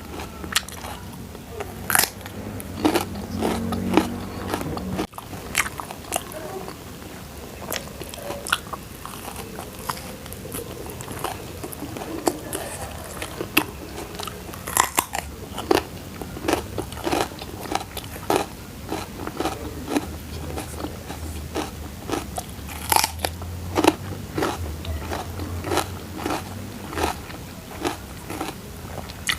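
Close-miked eating of crunchy food: a person biting and chewing, with frequent sharp crunches and wet clicks at an irregular pace.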